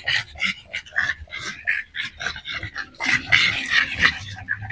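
A group of dogs, pugs among them, play-fighting, with a rapid run of short growls and grunts that gets louder about three seconds in.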